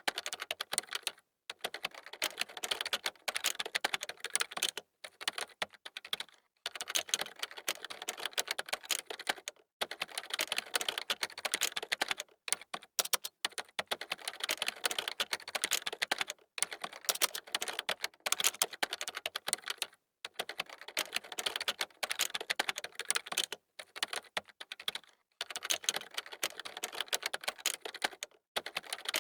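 Typing on a computer keyboard: rapid key clicks in runs of a few seconds, broken by short pauses.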